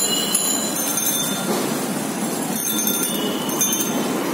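Cycle-rickshaw bells ringing in quick bursts, once near the start and again from about two and a half seconds in, over a steady din of street traffic and rattling rickshaws.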